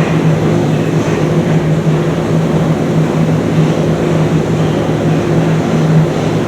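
Steady low hum from a Thameslink Class 700 electric train at the platform, one constant tone over a rumbling noise bed, with no change in pitch or level.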